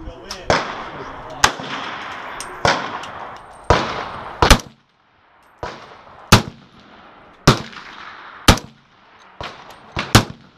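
Rifle shots, about a dozen sharp reports at uneven intervals, some close together in pairs, each trailing off in an echo.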